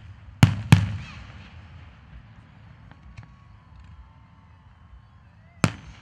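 Aerial fireworks shells bursting: two sharp bangs in quick succession about half a second in, each with a short echoing tail, a couple of faint pops around the middle, and another loud bang near the end.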